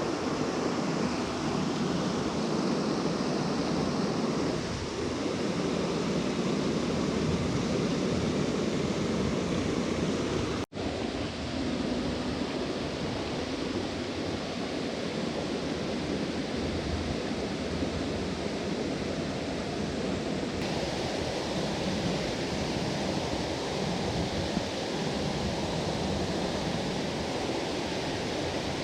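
Steady rush of flowing water from a mountain stream, with a brief dropout a little over ten seconds in.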